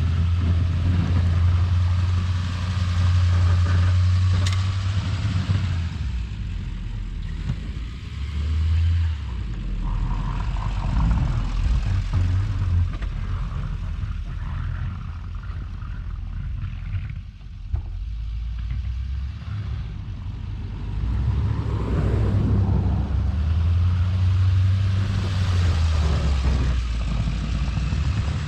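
Straight-piped loader's diesel engine running loud as it plows snow, its note swelling and easing with load: strongest in the first few seconds and again near the end, quieter in the middle.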